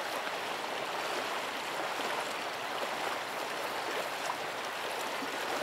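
A fast-flowing river running over a stony bed: a steady, even rush of water.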